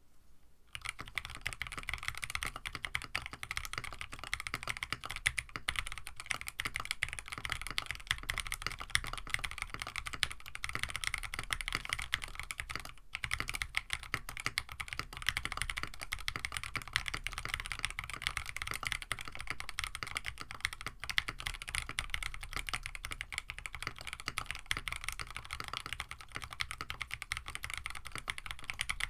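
Continuous fast typing on a KBD67 Lite mechanical keyboard with EV-00 switches and an FR4 plate. It starts about a second in and has a brief pause near the middle. The owner finds the sound a little muted, "kinda dead".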